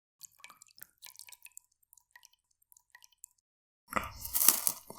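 Golgappe (pani puri) being eaten: faint wet drips and small clicks, then, about four seconds in, a loud wet crunch as a filled shell is bitten and chewed.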